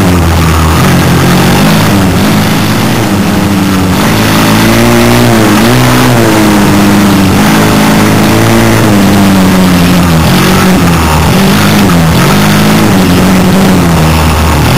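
Small off-road vehicle engine running loud under the rider, its pitch rising and falling again and again as the throttle is opened and eased along the trail.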